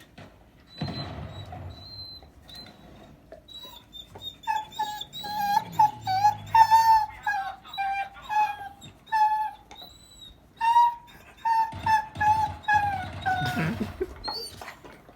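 Dog whining in a string of short, high-pitched whimpers that start about four seconds in, with lower rough vocal sounds about a second in and again near the end. He is fussing to get at the other dog's bone.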